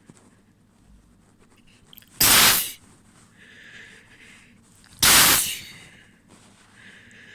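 A person sneezing twice, loud and sudden, about three seconds apart.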